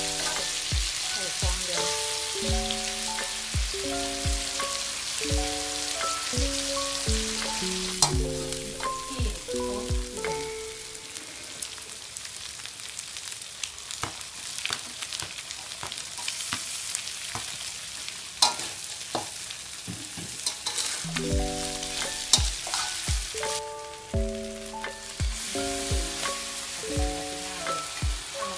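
Food sizzling in a hot metal wok during stir-frying, with a spatula scraping and knocking against the wok now and then. Background music of short keyboard-like notes plays over the first ten or so seconds, drops out, and comes back near the end.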